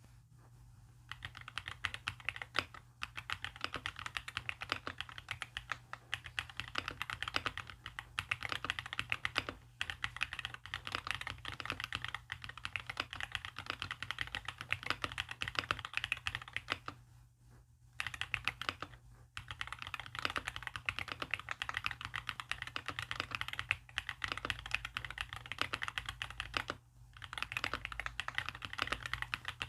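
Fast typing on a mechanical keyboard: a dense run of keystroke clicks, broken by a few short pauses.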